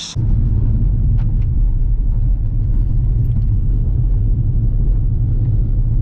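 Car driving, heard from inside the cabin: a loud, steady low rumble of engine and road noise that comes in suddenly at the start, with a couple of faint clicks about a second in.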